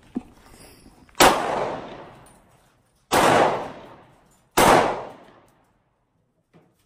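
Three handgun shots, about two seconds and then a second and a half apart, each sharp crack ringing out for about a second.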